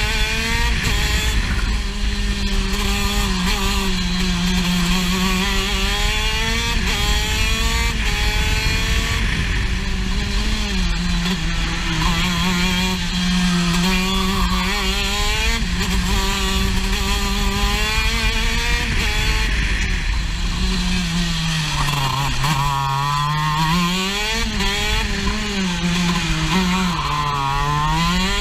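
Racing kart engine heard onboard during a lap: high revs held down the straights, the pitch falling as the kart slows for corners and climbing again on the throttle, with the deepest drops near the end.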